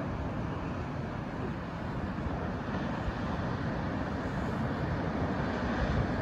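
Pacific Ocean surf breaking, a steady rushing noise, with wind on the microphone.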